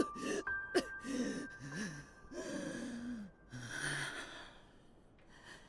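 Anime soundtrack: strained, wordless gasps and sighs from a voice over quiet music with a held tone, with a breathy rush about four seconds in, then fading low near the end.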